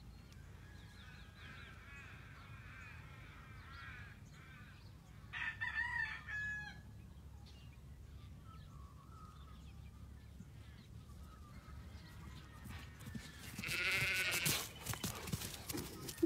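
A rooster crows once, about five seconds in, over faint bird chirps and low background noise. Near the end comes a louder, noisier burst.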